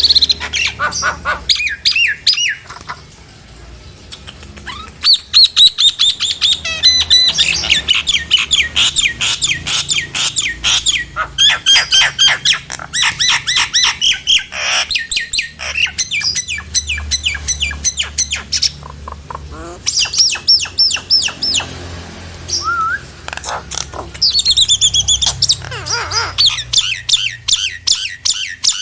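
Nias hill myna calling loudly: long runs of rapid, sharp repeated notes broken by short pauses, with a few sweeping whistles and harsh squawks, over a faint low hum.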